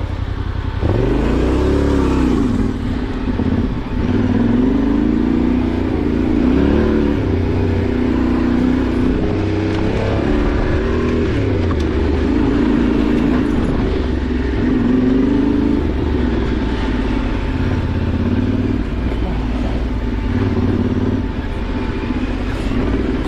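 Yamaha Ténéré 700's parallel-twin engine riding off-road, its revs rising and falling repeatedly as the throttle is worked, with a quick rev up and down about a second in and another around six seconds in.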